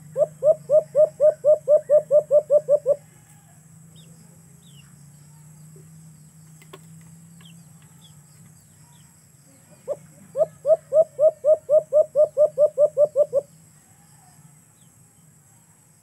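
A caged dove cooing: a quick run of about a dozen short notes, roughly four a second, at the start and again about ten seconds in, over a faint steady low hum.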